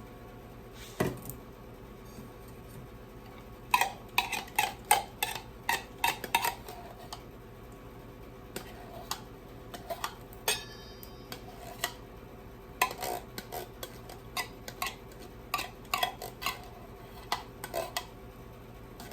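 A spoon clinking and scraping against a mixing bowl while stirring condensed cream of chicken soup into white wine, in irregular knocks with a quick run of them a few seconds in.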